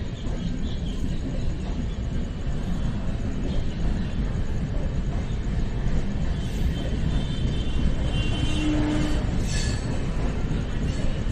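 Passenger train coaches passing close by at speed: a steady loud rumble of wheels on the rails, with a faint high whine from about six to nine seconds in.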